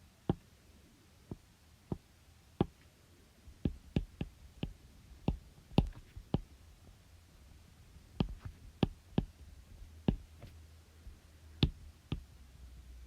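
Irregular clicking at a computer as an equation is entered, single clicks and short runs with pauses between, over a faint low hum.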